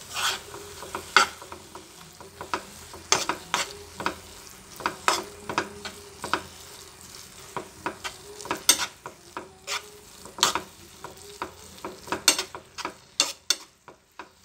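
A metal spoon stirring masala into cooked instant noodles in a pan, with irregular scrapes and taps of the spoon against the pan.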